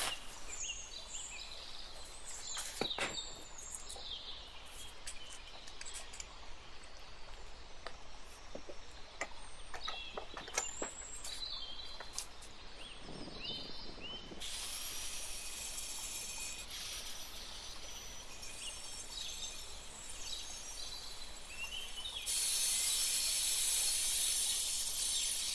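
Light knocks and clicks of a granite slab and a bar clamp being set on a workbench, with a few short high chirps. About halfway through, an angle grinder starts with a rising high whine and runs. A few seconds before the end its blade cuts into the granite, a louder steady hiss.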